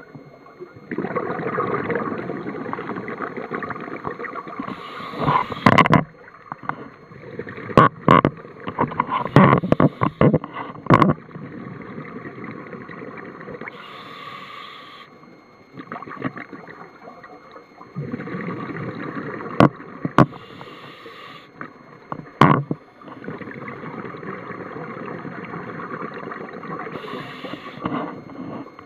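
Scuba regulator breathing underwater: long rushes of exhaled bubbles lasting a few seconds each, alternating with short hisses of inhalation, with scattered sharp clicks and knocks.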